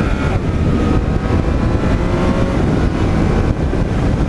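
Yamaha MT-09 motorcycle's inline three-cylinder engine running steadily while riding, heard from on the bike with a heavy low rumble underneath.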